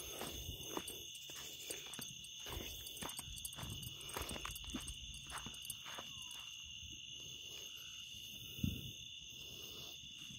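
Crickets trilling steadily in a high, continuous chorus, with faint scuffs and knocks of footsteps and handling on gravel and a soft thump near the end.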